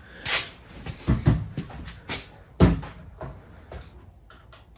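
A few dull knocks and thumps, the loudest about two and a half seconds in, then small light clicks near the end.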